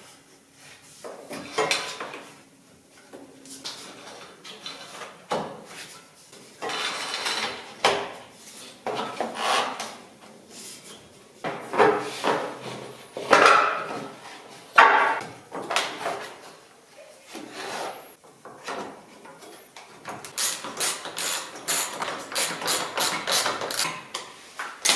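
Hands working on car parts: irregular rubbing, scraping and knocks, with a quick run of sharp clicks about twenty seconds in.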